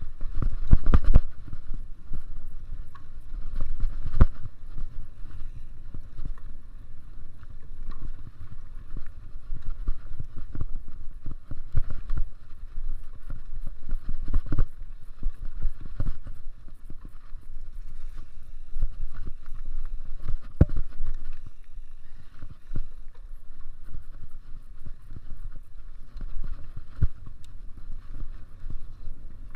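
Mountain bike being ridden over a rough dirt trail: a steady low rumble of wind and tyres on the microphone, broken by frequent knocks and rattles as the bike hits bumps.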